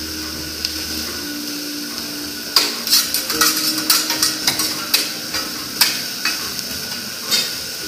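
Steady sizzle from a teppanyaki griddle. From about two and a half seconds in, the chef's metal spatulas clack sharply and irregularly against the hot plate and each other, two or three strikes a second, stopping shortly before the end.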